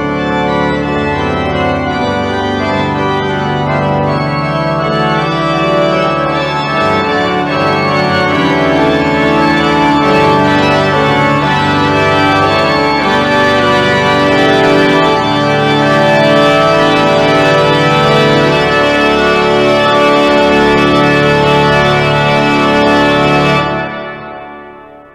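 Church pipe organ playing loud, full sustained chords that build steadily. Near the end the final chord is released and the sound dies away in the church's echo.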